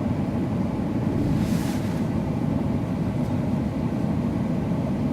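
Steady low road and engine rumble heard from inside a moving vehicle's cabin, with a brief hiss about one and a half seconds in.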